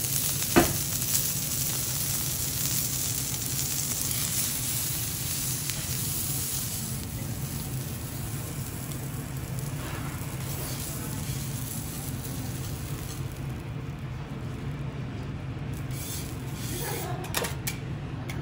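Diced beef sizzling on a hot steel teppanyaki griddle. There is a sharp metal click about half a second in. The sizzle thins out in the second half, and a few light metal clinks come near the end, over a steady low hum.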